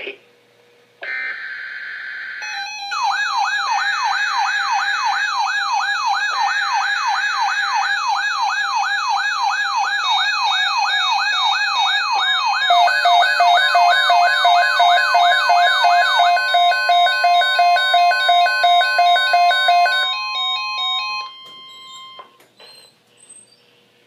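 Several NOAA weather alert radios going off together for a Flash Flood Watch. A short buzzy tone burst comes about a second in, then a siren-like sweep about two and a half times a second, joined about halfway through by rapidly pulsed beeps and a steady tone. The alarms cut off shortly before the end.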